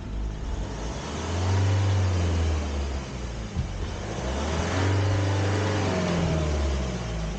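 Car engine revved hard twice, each rev rising and then falling away. It is a struggling hill start: the car cannot get moving on the road.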